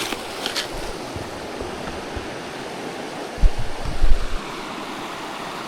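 Steady rushing of the Robson River's flowing water. About three and a half seconds in, a second-long burst of low thumps is the loudest sound.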